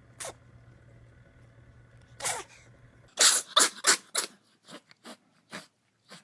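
Cat sneezing: two sharp sneezes a couple of seconds apart, then a quick run of about eight sneezes, the first four loud and close together, the rest fainter.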